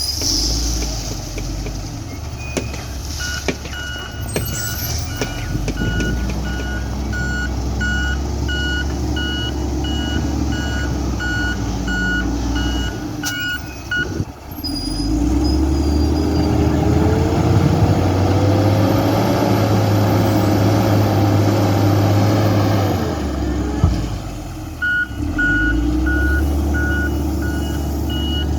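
XCMG ZL50GN wheel loader's diesel engine running while its reversing alarm beeps steadily. Midway the beeping stops, and for several seconds the engine revs up louder and higher before it drops back. The beeping then starts again near the end.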